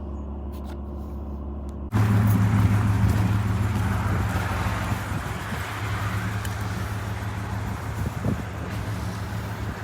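Vehicle engine running steadily. About two seconds in, the sound cuts abruptly to a louder engine drone.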